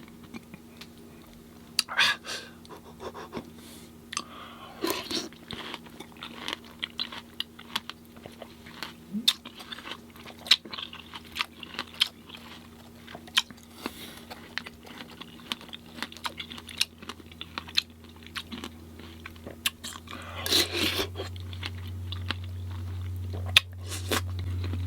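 Close-miked chewing of fresh fruit in coconut water, wet crunching and biting with many short sharp clicks. A low steady hum grows louder in the last few seconds.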